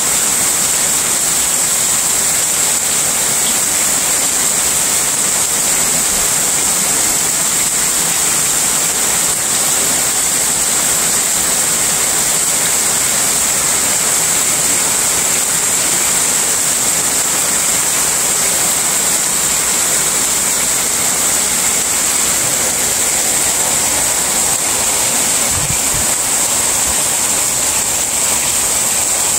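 Heavy rain pouring down steadily, with a thick stream of runoff from the roof edge splashing into a brimming barrel close by.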